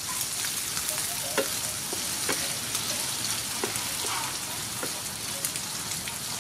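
Sliced sea snail and garlic sizzling in hot oil in a frying pan while being stirred with a wooden spatula, which knocks and scrapes against the pan a few times.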